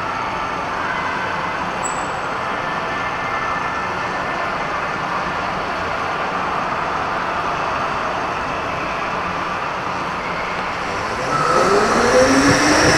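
Go-kart on a concrete indoor track, heard from on board: a steady rush of running noise with a faint whine from the electric motor that slides up and down. Near the end it grows louder and rises in pitch as the kart accelerates.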